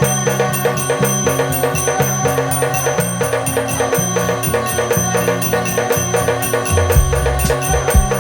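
Music of fast, evenly spaced percussion strokes over a bass line that steps from note to note, moving lower about seven seconds in.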